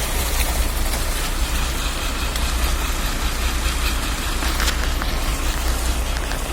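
Logging truck's engine running steadily at low revs: an even low drone under a steady hiss.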